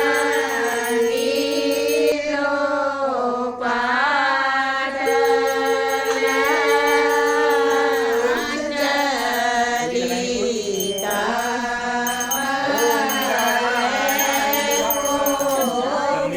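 Devotional chant sung with musical accompaniment: a voice holding long notes that bend and glide slowly between pitches.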